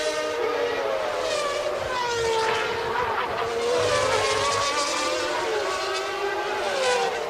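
Formula One cars' high-revving racing engines, several at once, their pitch rising and falling as they accelerate, shift and brake.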